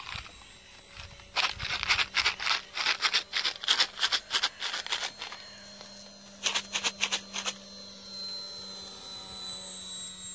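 Electric motor and propeller of a Parkzone S.E.5a radio-control biplane, a faint steady whine that grows a little louder near the end as the plane comes closer. For several seconds it is overlaid by loud, irregular crackling close to the microphone.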